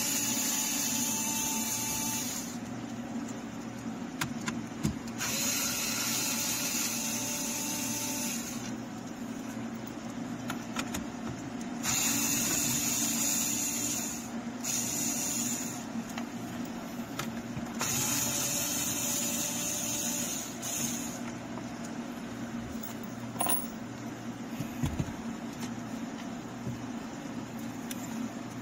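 Cordless drill-driver running in five short bursts of one to three seconds each, backing out the screws that hold the factory radio module in the dash, with a low steady hum underneath.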